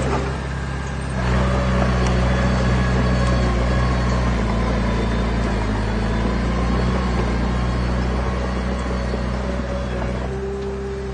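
Diesel engine of a heavy construction machine running steadily, growing louder about a second in.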